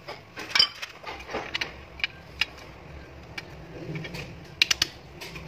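Clicks and knocks of a Suzuki Celerio alternator's metal housing and small parts being handled and turned over, ending with a quick run of three sharp clicks.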